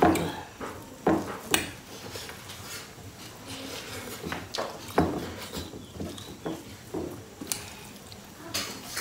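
Close-up eating sounds as rice and dal are eaten by hand: irregular chewing and lip-smacking, with a few louder smacks near the start and about five seconds in.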